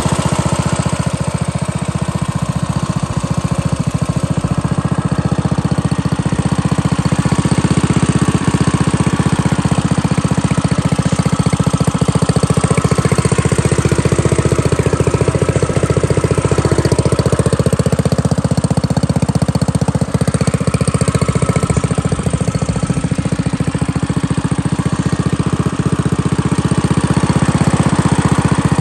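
Predator 212 single-cylinder four-stroke engine on a Coleman minibike, running steadily at an even speed.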